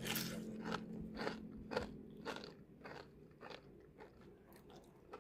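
A person chewing crunchy homemade potato fries close to the microphone: a run of sharp crunches, about two a second, that grow fainter and die away after about three seconds.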